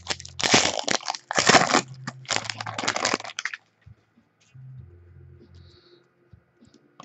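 A trading card pack wrapper being torn open and crinkled by hand, in several loud crackling bursts that stop about three and a half seconds in. After that only a faint low hum remains.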